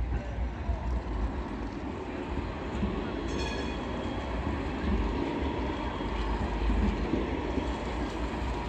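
GT8N low-floor tram rolling past close by, its wheels and running gear making a steady rumble on the rails. A brief high-pitched ring comes about three seconds in.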